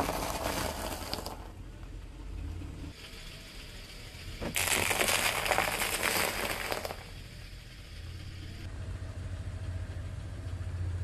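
Car tyre rolling over and crushing crunchy food items on concrete: a crackling crunch at the start, then a louder, longer crunch from about four and a half seconds in. The car's engine hums low underneath.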